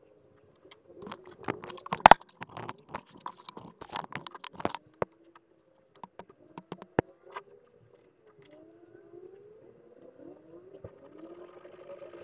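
Sharp clicks and light knocks of a needle file and small carbon brushes being handled on a stone block, then a soft high scraping near the end as a blade files a carbon brush down to size.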